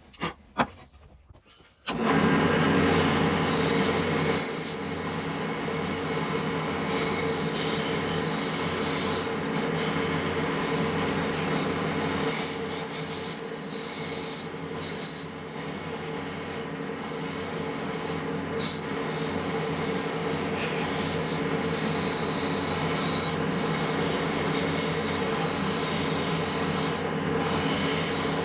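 An electric abrading tool starts abruptly about two seconds in and runs steadily, working against the surface of the part being restored.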